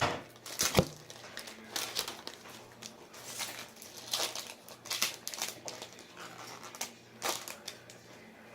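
Trading card pack wrappers crinkling and cards being handled, in irregular crackly bursts about once a second.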